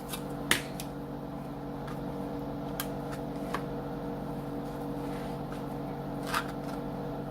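Steady low hum with a few short, sharp taps and clicks scattered through it: a knife tapping a cutting board as refrigerated biscuit dough is cut into quarters.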